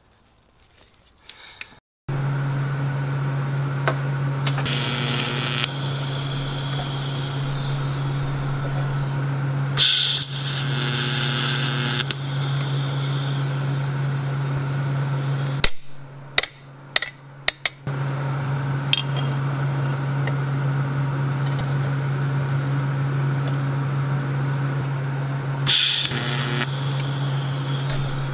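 Welding machine humming steadily, with three short bursts of hissing arc noise as tack welds join a steel cylinder to the square-tube die. A few sharp clicks and clanks come about two-thirds of the way through, while the hum dips.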